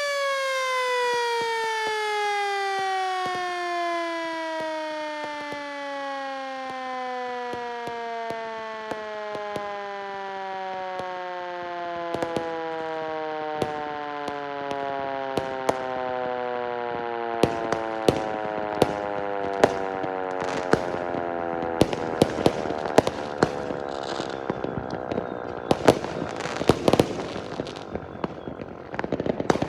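Yahagi S-10 motor siren, driven by a single-phase 2 hp motor, winding down after its power is cut, its wail falling steadily and slowly in pitch. Firecrackers and fireworks start popping about twelve seconds in, sparse at first and then more and more frequent toward the end.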